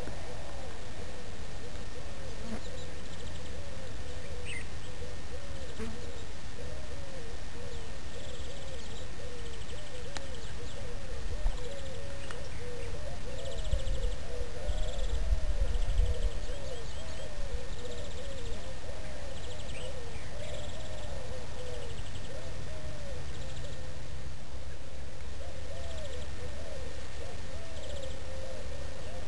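Birds calling at sunrise: a steady run of short, low, arching notes repeated over and over, with patches of a higher, fast pulsing buzz. A low rumble, like wind on the microphone, swells for a few seconds about halfway through.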